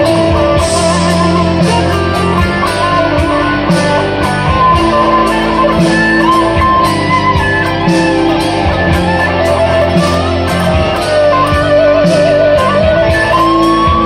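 Electric guitar played through a Framus Dragon amplifier: an improvised lead line of sustained notes, several shaken with vibrato, over held lower notes.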